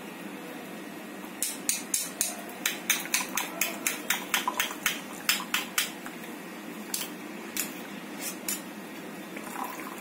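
Steel spoon clinking against a small steel tea strainer, a quick run of taps, about four a second, lasting some four seconds, then a few scattered taps, as the spoon presses the boiled spice residue to force the decoction through into the tumbler.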